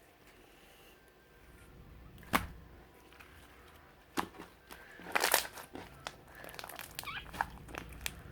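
Mixed slime being squished and pressed by hand, giving sharp pops and clicks: one about two seconds in, another about four seconds in, and a quick cluster around five seconds in.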